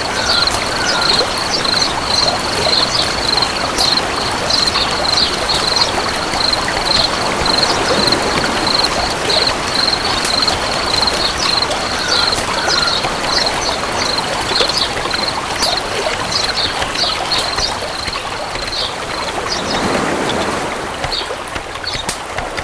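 Running water of a stream, with a steady high-pitched chirping of crickets over it and a few short bird chirps.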